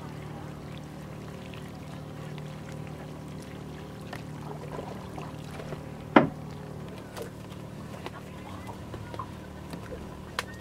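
A boat's engine running steadily, with a single sharp knock about six seconds in and a few lighter clicks.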